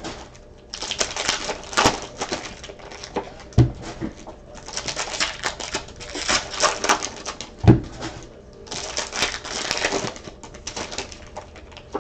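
Trading cards and their packaging being handled at close range: stretches of rustling, crackling and flicking as cards are slid and sorted, with a few soft thumps as a stack or box is set down.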